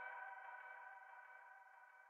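The last sustained chord of an electronic music track, several steady tones ringing together and fading smoothly toward silence at the end of the track.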